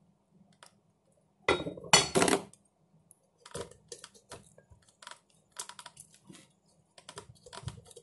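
A raw whole chicken handled on a wooden chopping block: a loud cluster of knocks and handling noise about two seconds in, then a run of short, irregular taps and clicks.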